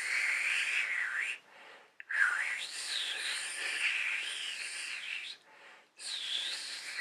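Breathy, airy hiss of air blown out past the teeth and tongue in a fingerless whistle attempt, with a higher, wavering pitch in it but no clear whistle tone: the stage just before the whistle comes. Three blows: one ending about a second in, one from about two to five seconds, and another starting near the end.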